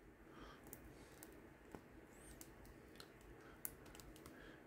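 Faint, scattered small clicks and taps of a plastic action figure, a Power Rangers Lightning Collection Yellow Alien Ranger, being handled by fingers as its small accessory is fiddled with. One slightly louder click comes about three and a half seconds in.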